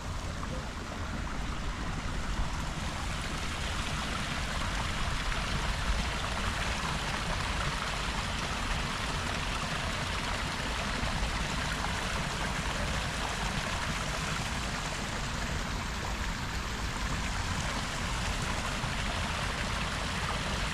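Water running steadily over rocks into a garden pond from a small waterfall or stream feed, an even rushing trickle.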